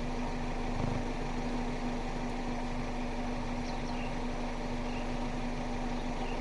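Steady hum of an idling truck engine, with a constant drone that does not change.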